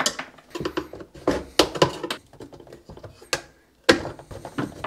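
Screwdriver working the plastic retaining clips out of a KTM 250 SX's plastic air filter box: a string of sharp plastic clicks and taps, the loudest right at the start and again about four seconds in.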